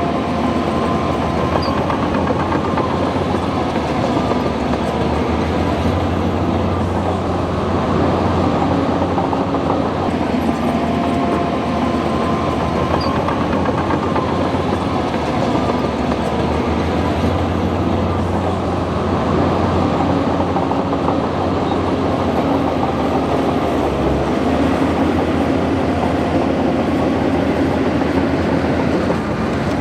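Bulldozer's diesel engine running steadily under load, its pitch rising and falling slightly, with a continuous mechanical clatter from the machine.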